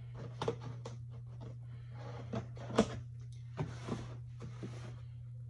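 Cardboard shipping box being handled and turned over: several sharp taps and knocks, the loudest nearly three seconds in, and a brief scraping rustle about a second later.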